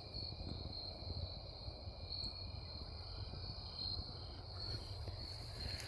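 Insects trilling steadily in the woods at dusk: a continuous high-pitched trill that pulses slightly, with a fainter lower trill and a low rumble underneath.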